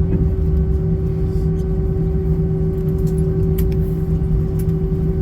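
Steady airliner cabin drone after landing, the jet engines and cabin ventilation running with a constant low hum while the plane taxis to the gate.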